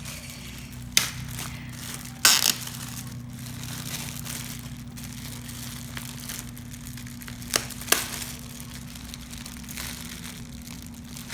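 Plastic packaging crinkling and rustling as it is handled and opened, with a few sharp crackles. The loudest comes about two seconds in, and two more come close together near the end.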